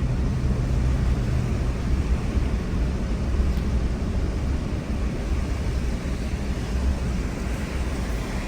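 Vehicle driving along a sand beach: steady engine and driving noise with a low rumble.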